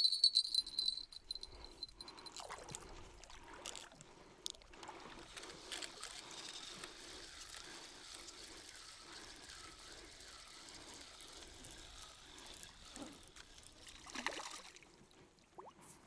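Spinning reel cranked steadily to retrieve the line, with water lapping around the angler's legs; near the end a small hooked fish splashes at the surface. A high ringing tone sounds in the first second.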